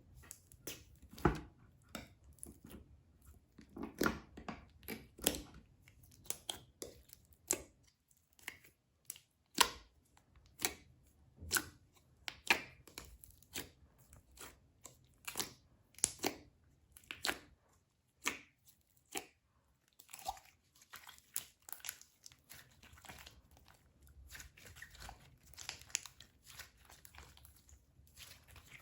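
Slime being squeezed, stretched and pressed by hand, giving irregular sharp pops, snaps and crackles, one to three a second, with a quieter sticky crackle between them.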